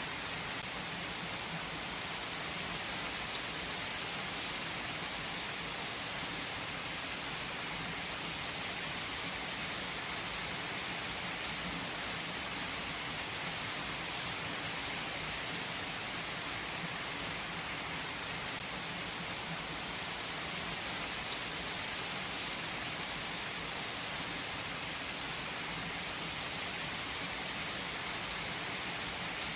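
Heavy rain falling steadily on trees, an even hiss of drops on leaves with no let-up.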